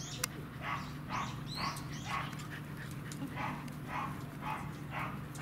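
Pembroke Welsh corgi panting close by: short breathy huffs about two a second, with a pause of about a second midway.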